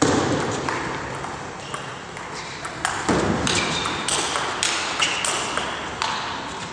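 Table tennis rally: the celluloid-type ball clicks sharply off the rackets and the table in quick succession, about two hits a second, each with a short ring.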